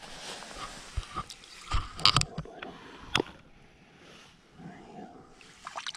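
Footsteps and shuffling on wet sand with a few sharp knocks and rustles, the loudest about two seconds in, as a small turtle is carried and set down in shallow water.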